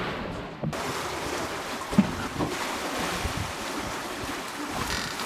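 Wind and sea water rushing past a sailing catamaran under way, with wind buffeting the microphone. There is a single short knock about two seconds in.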